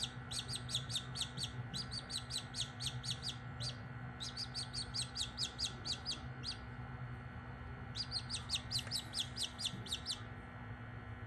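Australorp chicks peeping rapidly during hatching: rows of short, high peeps at about six a second, breaking off briefly about four and six and a half seconds in and stopping about ten seconds in. A low steady hum runs underneath.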